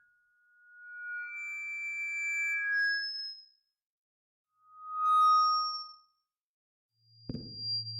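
Microphone feedback: high-pitched squealing tones that swell and fade in three separate bursts, the second short and the loudest. The third starts near the end with a sharp click and a low hum underneath.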